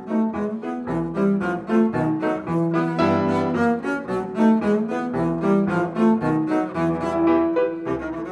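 Double bass played with the bow, carrying a melody over a Petrof grand piano that strikes a steady run of chords, about four a second.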